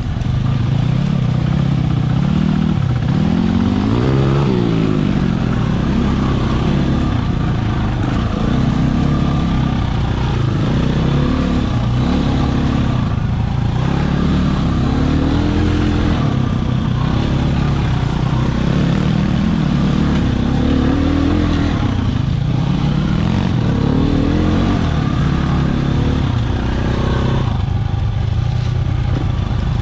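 Two-stroke engine of a Husqvarna 300 dirt bike ridden close up, revving up and down over and over as the rider works the throttle and gears, with the rise and fall coming every two or three seconds.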